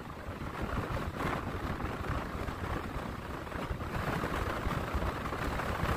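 Strong gusting wind from a hurricane's outer bands buffeting the microphone, over the rush of heavy surf breaking on the beach. The gusts swell stronger about four seconds in.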